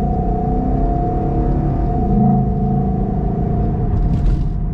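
2011 Ford Mustang GT's 5.0-litre V8 on its stock mufflers, with road noise, heard from inside the moving car. It is a steady rumble that swells slightly about two seconds in.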